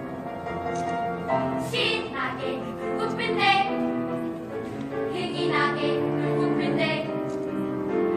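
Children's vocal ensemble singing a children's song over instrumental accompaniment; the voices come in about two seconds in over the steady backing.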